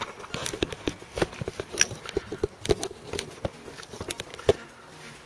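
Irregular clicks, taps and knocks of hard plastic and metal being handled close by, with one sharp knock about four and a half seconds in.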